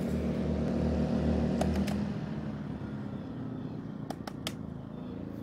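A Dinking DK2300i-M inverter generator and a Harbor Freight Predator inverter generator running in parallel, their engine note dropping and quieting about two seconds in as load is switched off. A few sharp clicks from the space-heater switches being turned off.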